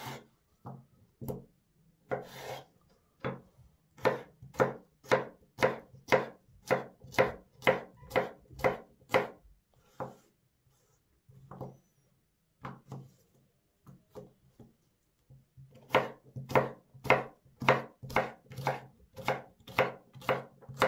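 Chef's knife chopping cucumber on a bamboo cutting board: sharp knife strikes against the board in steady runs of about three a second, thinning out to a few quieter cuts for several seconds in the middle.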